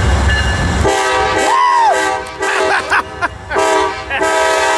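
Amtrak GE Genesis diesel locomotive sounding its multi-note horn as it arrives: a long chord about a second in, a break broken by short pieces, then another long blast near the end.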